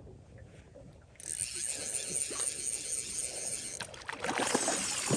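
A hooked trout splashing and thrashing at the water's surface near the end, as it is played toward the boat, over a steady hiss that starts about a second in.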